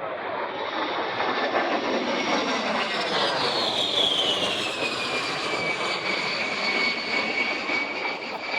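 A-10 Thunderbolt II's twin General Electric TF34 turbofan engines on a low pass: a loud steady rush with a high whine that drops in pitch about three to five seconds in as the jet goes by.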